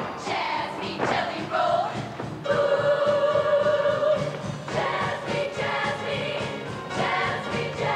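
Show choir of female voices singing together in harmony, holding one long chord for about two seconds midway.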